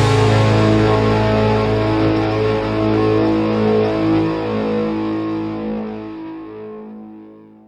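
A rock band's final chord rings out on distorted electric guitar over a low bass note. It is held steadily, then fades away to silence near the end.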